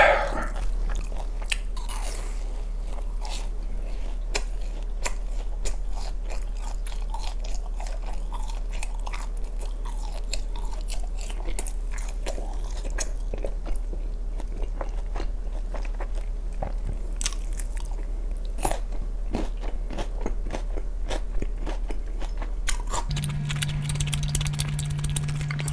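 Close-miked chewing and biting of sauce-coated fried chicken, with many small, irregular crunches and mouth sounds. A low steady hum comes in near the end.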